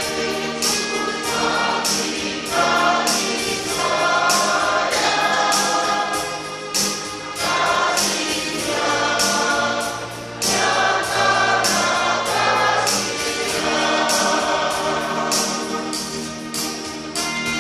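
Church choir singing a praise song in sustained phrases, each a few seconds long with short breaths between them.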